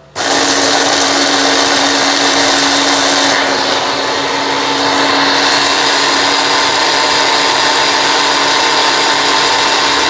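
Electric hand blender with a chopper bowl attachment switching on sharply and running continuously, a steady motor whine with the blades chopping fresh chilies.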